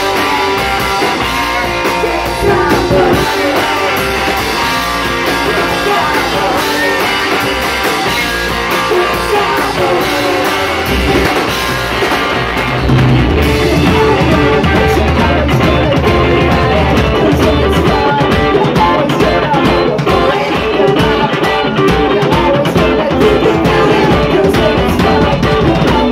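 Live rock band playing electric guitars, bass guitar and drum kit, getting fuller and louder about thirteen seconds in.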